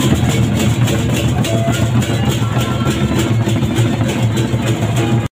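Gendang beleq, the big Sasak barrel drums, beaten in a fast, dense rhythm, loud and rumbling. The sound cuts off abruptly about five seconds in.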